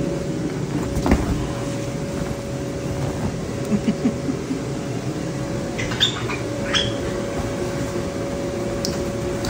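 Electric blower fan of an inflatable bounce house running steadily: a constant hum with a low rumble. Over it come a few soft thumps and a couple of short high squeaks about six seconds in.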